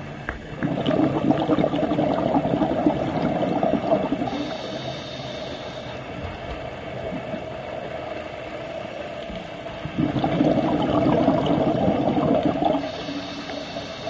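Scuba diver breathing through a regulator underwater: two long bursts of exhaled bubbles, about a second in and about ten seconds in, each followed by a brief hiss of inhalation.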